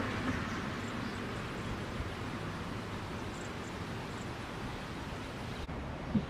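Steady outdoor background noise, an even hiss with a low rumble, and a brief soft thump about six seconds in.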